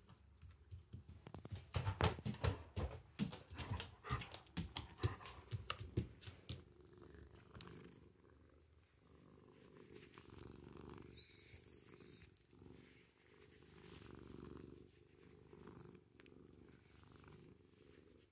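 Ginger tabby kitten purring steadily while being stroked. Between about one and a half and six seconds in, loud crackling rustles and knocks of fur and hands rubbing close against the microphone.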